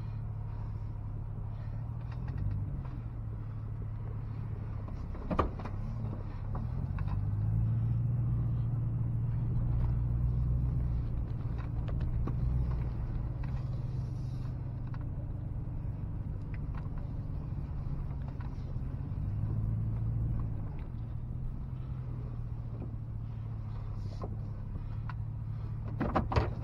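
Vehicle engine running at low speed, heard from inside the cab, with a steady low hum that grows louder twice as it pulls away. A single click comes about five seconds in, and a few sharp clicks come near the end.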